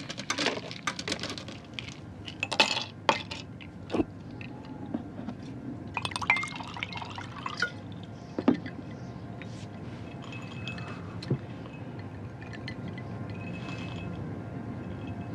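Glass clinking and liquid being poured, with sharp clicks in the first few seconds and a pour about six seconds in, over a low steady hum.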